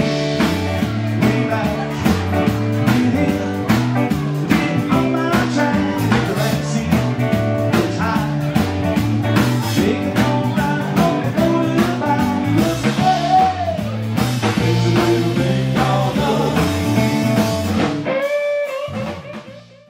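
Live rock band playing: electric guitars, bass and drum kit, with a man singing. Near the end the drums and bass drop out and a held guitar note fades away.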